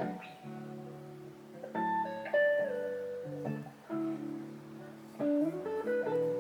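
Background music: a guitar plucking a slow melody, a new note or chord every second or two.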